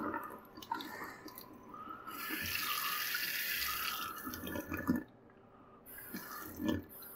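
Water from a Moen pull-down kitchen faucet running out of the sprayer head into the sink. The flow grows louder about two seconds in, cuts out briefly about five seconds in, then runs again more softly.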